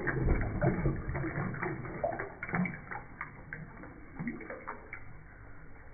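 Toilet flushing, water swirling down the bowl's drain with scattered splashes, dying away as the flush ends.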